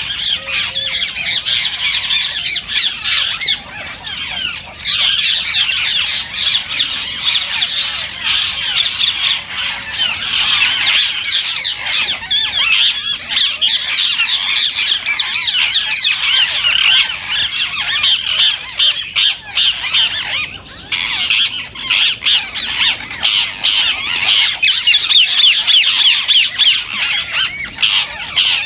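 A flock of rose-ringed (Indian ringneck) parakeets calling all together, many high-pitched shrill calls overlapping without a break except brief lulls about four, twelve and twenty seconds in.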